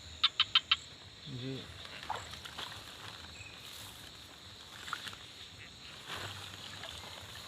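Steady high-pitched buzz of night insects over a quiet outdoor background, with four quick, loud chirps right at the start and a short vocal grunt about a second and a half in.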